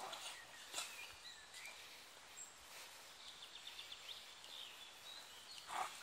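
Quiet woodland ambience with small birds chirping, including a quick trill about halfway through. A brief louder sound comes just before the end.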